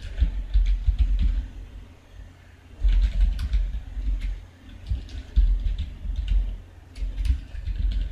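Typing on a computer keyboard, several quick runs of keystrokes with short pauses between them. Each key press lands with a dull thud as well as a click.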